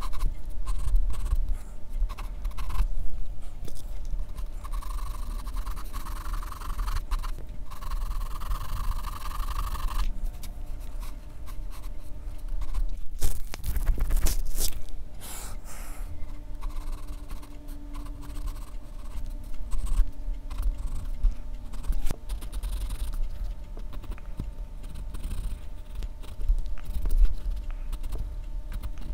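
Graphite pencil scratching and scraping across drawing paper in quick shading strokes, with a few clicks and knocks about halfway through.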